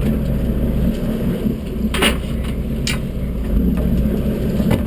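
Sportfishing boat's engines running steadily at low speed, a steady low drone, with three short sharp clicks or knocks about two, three and nearly five seconds in.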